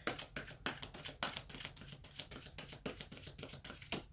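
A deck of tarot cards being shuffled hand to hand, giving a quick, uneven run of light papery clicks. Near the end there is one louder snap as a card jumps out of the deck.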